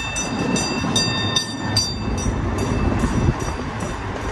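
Miniature park train's open cars rolling along the track: a steady low rumble with regular clicks from the rail joints, about twice a second. A thin high squeal sounds over the first two seconds, then fades.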